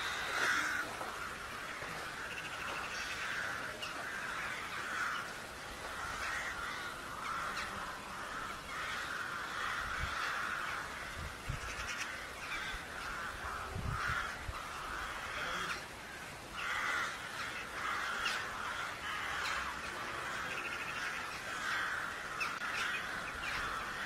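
Birds calling over and over with harsh, rough calls, with a few soft low thumps near the middle.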